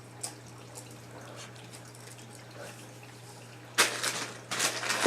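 Plastic packaging of a squishy toy crinkling and rustling as it is handled, faint and scattered at first, then loud and dense from nearly four seconds in.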